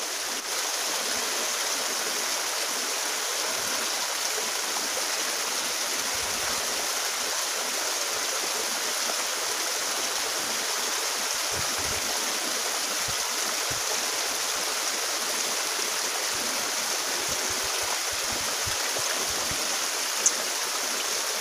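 Steady rushing of a small, fast-flowing ditch stream spilling over a little cascade. One brief click near the end.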